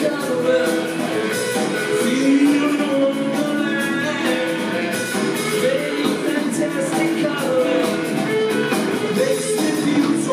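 Live rock trio playing loudly and steadily: electric guitar, electric bass and drum kit, amplified through a concert PA.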